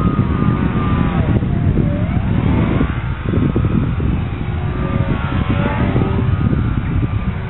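Electric motor and propeller of a foam RC biplane whining in flight, the pitch dipping and then rising again about two seconds in as the plane passes, over heavy wind rumble on the microphone.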